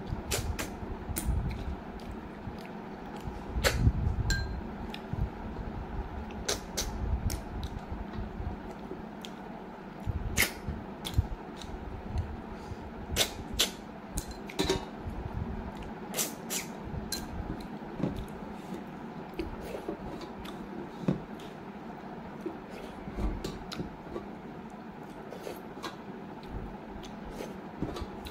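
Close-up mouth sounds of eating rice and snail curry by hand: irregular wet smacks, clicks and chewing, some sharp and loud, over a steady low hum.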